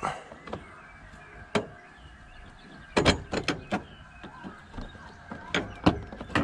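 A strut tower brace being worked onto the strut-top mounts, giving irregular sharp knocks and clinks. There is a quick cluster of them about halfway through and a few more near the end.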